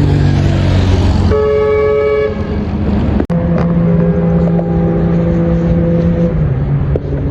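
Road traffic with a steady engine hum, and a car horn sounding once for about a second, about a second in. The sound drops out for an instant about three seconds in.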